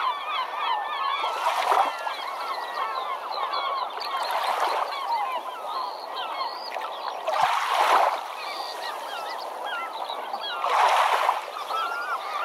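A flock of birds calling over one another in a dense, continuous chatter of short chirps and squeals. Swells of rushing noise rise and fall about every three seconds.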